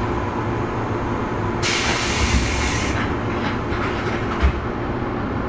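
Inside a 117 series 300-subseries electric train car at a station stop: a burst of compressed-air hiss about two seconds in, lasting about a second, then a single low thump, over the car's steady equipment hum. These are the doors closing just after the door warning, before departure.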